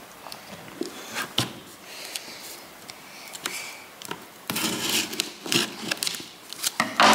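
Scissors snipping and scraping at the plastic shrink-wrap on a cardboard box, with scattered clicks and crinkles of the film, busiest about halfway through.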